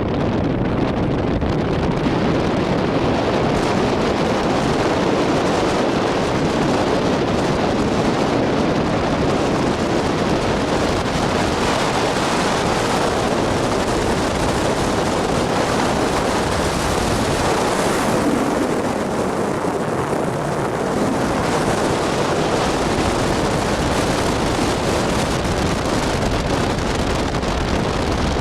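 Loud, steady wind and road noise of a car driving along, with wind buffeting the microphone; it eases slightly about two-thirds of the way through.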